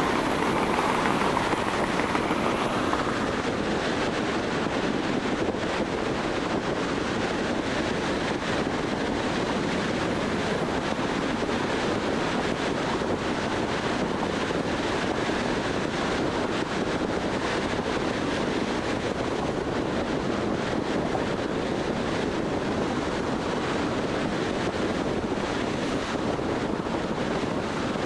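Steady tyre and wind noise of a car driving on a highway bridge approach. A higher hum fades out over the first few seconds.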